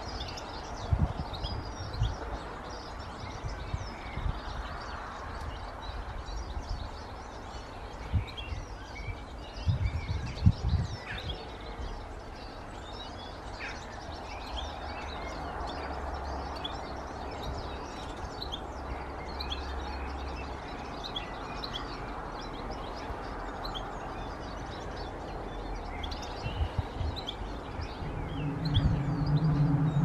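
Small garden birds chirping and twittering in many short calls over a steady background hum, with a few low thumps now and then. Near the end a low, steady droning hum comes in.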